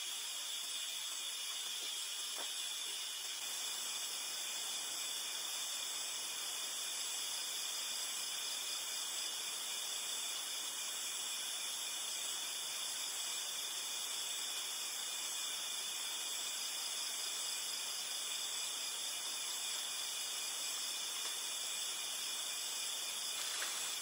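Steady chorus of night insects such as crickets, a continuous high buzzing hiss.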